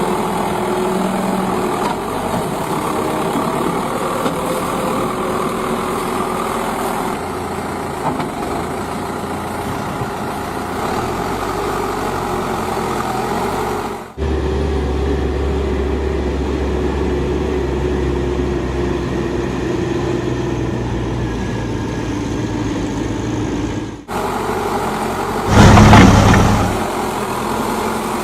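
Heavy diesel vehicle engines running steadily, broken by two abrupt cuts, with a loud, noisy burst lasting about a second near the end.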